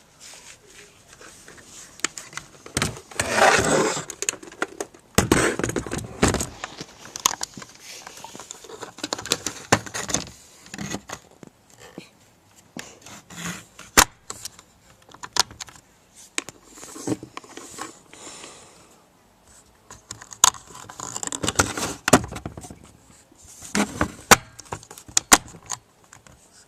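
Rapid-fire BB gun being handled and worked: rattling, scraping noise with scattered sharp clicks at uneven intervals.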